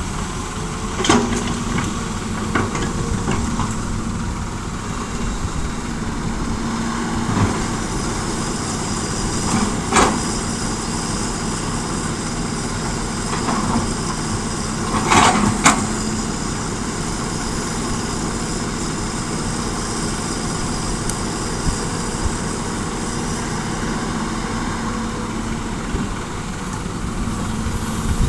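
Heavy diesel engines of a Hitachi excavator and dump trucks running steadily, with a few sharp knocks about a second in, about ten seconds in, and twice around fifteen seconds in.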